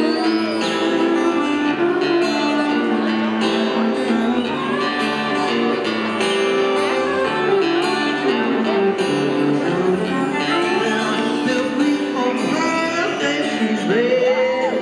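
Live band playing with strummed acoustic guitars and a violin bowing sliding melodic lines over them, the band's instrumental opening before any singing.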